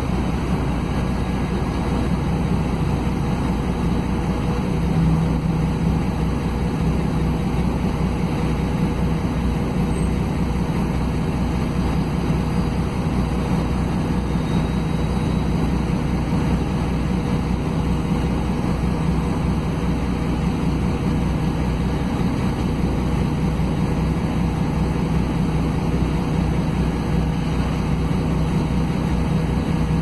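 Cabin sound of a Mercedes-Benz O500 UA articulated city bus in normal driving: its OM457LA straight-six diesel engine and ZF Ecomat automatic driveline running under way, a steady low hum with road noise.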